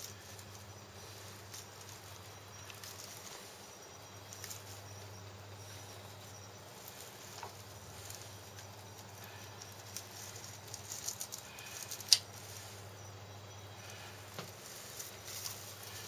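Faint scattered rustles and small clicks of plastic anti-bird netting being worked free from around a snake, with a run of clicks and one sharp click about twelve seconds in.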